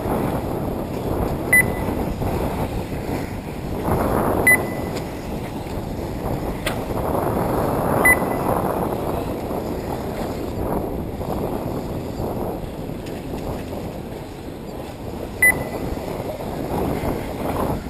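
1/8-scale electric RC off-road buggies running on the track, their noise swelling and fading as they pass, with wind on the microphone. Several short, high electronic beeps sound at intervals over it.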